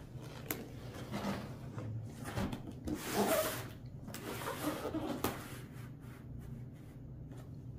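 Heavy cardboard box of stoneware dishes being turned over by hand on a surface: cardboard scraping and rubbing in several bursts over the first five or so seconds, with a sharp knock about half a second in.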